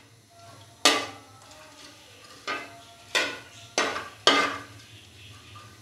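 Perforated metal skimmer spoon stirring whole spices in oil in an aluminium kadhai, knocking against the pan five times at uneven intervals, each clink ringing briefly.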